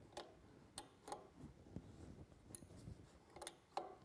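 Faint, sparse metallic clicks, about six in four seconds with the loudest near the end, from a small wrench working on a boost-gauge fitting as it is snugged into an aluminium intake manifold.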